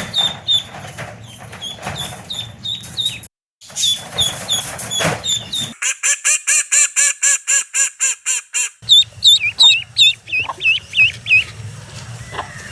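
Duckling peeping: runs of short, high chirps, one spliced recording after another, with a brief gap about three seconds in. In the middle comes a clean, even run of about four peeps a second, followed by louder chirps that dip and rise in pitch.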